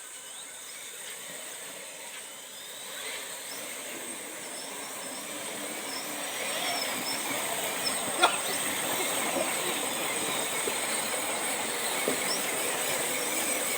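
A steady hiss that grows louder over the first seven seconds, with one sharp click about eight seconds in.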